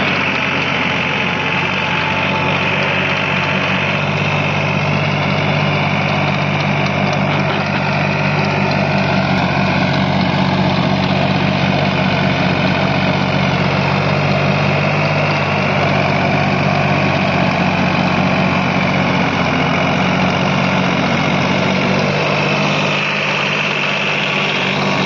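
New Holland 3630 tractor's three-cylinder diesel engine running steadily under load, driving a single-speed rotavator through thick grass.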